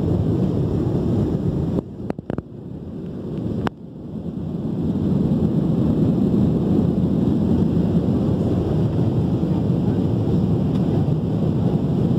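Steady low roar of airliner cabin noise in flight, the engines and rushing air heard from a window seat. About two seconds in it drops out briefly with a few clicks, then swells back to the same steady roar.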